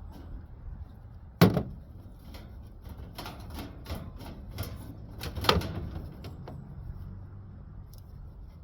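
Side cutters snipping tubing in an air-conditioner coil, giving sharp metallic snaps. The loudest snap comes about a second and a half in and another about five and a half seconds in, with lighter clicks between.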